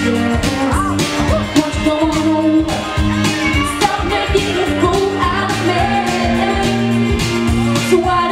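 Woman singing a pop song live into a microphone, backed by a band through the PA, with sustained bass notes and a steady drum beat.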